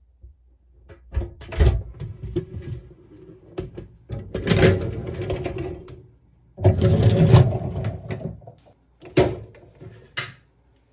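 Dishwasher being loaded: its wire racks rattle as they slide on their rails, with a series of knocks and clatters. There are two longer rattling stretches, a few seconds in and again about two seconds later.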